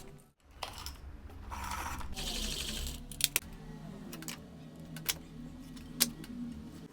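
Quiet background music with a hissing scrape for about a second and a half, then several sharp clicks and taps, typical of hand-tool work on wood.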